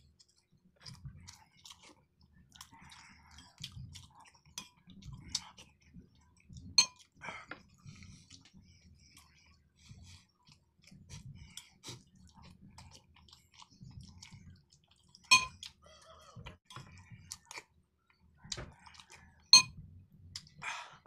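Close-up chewing and lip-smacking of a man eating rice and dried fish with his hand, a soft chewing stroke about once a second with small wet ticks. Three sharp, loud clicks stand out, about a third of the way in, past the middle and near the end.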